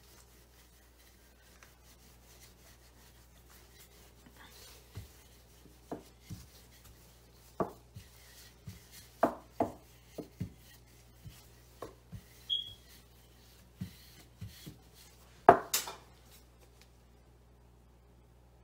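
Wooden rolling pin rolling out cookie dough on a floured countertop: soft rubbing, then scattered short wooden knocks and clicks, the loudest about three-quarters through.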